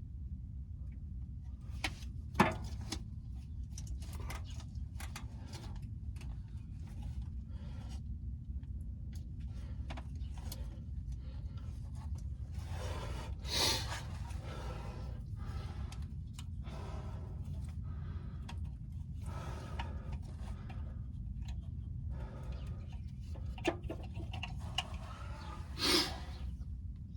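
Scattered clicks and light knocks of hand tools and parts being handled while spark plugs and plug wires are changed, with a few sharper clicks and short hissing bursts, over a steady low rumble.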